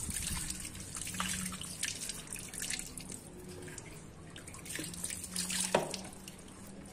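Water poured from a basin splashing and trickling over rusty carpenter's pincers held in a rubber-gloved hand, with drips onto concrete as the tool is rinsed. A single sharp tap a little before the end.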